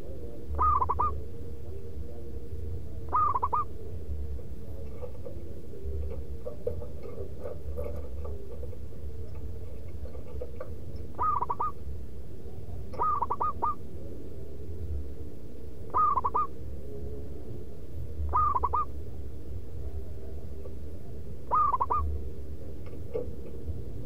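Zebra dove (perkutut) cooing: seven short phrases of quick staccato coos, each about half a second long and spaced irregularly a few seconds apart.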